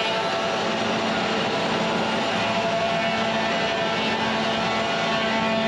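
Industrial wood planing machine running steadily, a constant machine drone with a few held tones.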